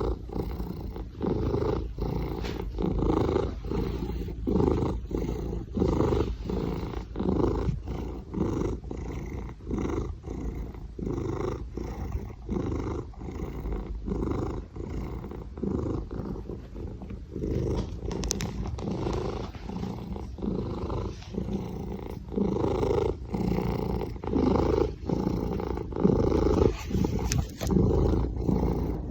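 Maine Coon cat purring, a continuous low rumble that swells and fades in a steady rhythm with each breath.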